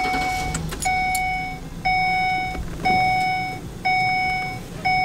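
A vehicle dashboard warning chime sounding in the van's cab: a single steady electronic tone repeating about once a second, each chime fading over most of a second, six times in a row.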